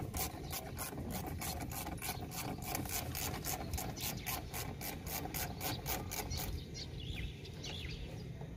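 Hand ratchet wrench turning a bolt on a Cessna 208B Grand Caravan's wheel brake assembly, clicking in quick, even strokes of about four a second that stop about six and a half seconds in.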